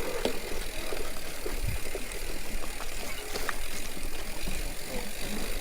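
Hardtail mountain bike rolling over a rough trail, with a steady low rumble and scattered small clicks and rattles from the bike.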